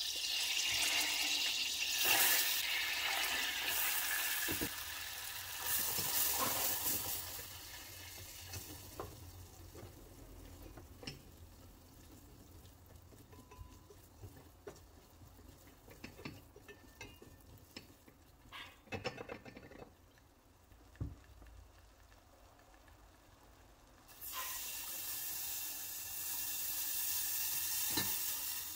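Melted butter sizzling in a stainless steel saucepan, then a silicone whisk stirring flour into it with light scrapes and taps against the pan. Near the end, milk pours in from a bottle with a steady splashing rush.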